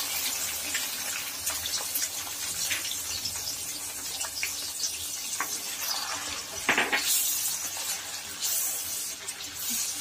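Onion paste sizzling in hot oil in a kadhai, a steady hiss, with a spatula scraping and tapping against the pan as it is stirred. The paste is being fried until its raw taste is gone.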